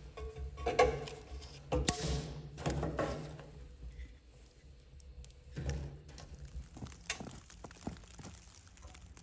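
Split firewood logs knocked and shoved into a wood stove's firebox: a few sharp wooden knocks in the first three seconds, then another thump a little later.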